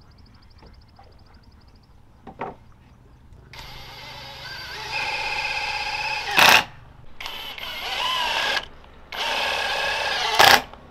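Cordless drill boring into hexagonal wooden roof shingles, starting about three and a half seconds in and running in three stretches, its pitch wavering under load. Two sharp, loud cracks come, one midway and one near the end.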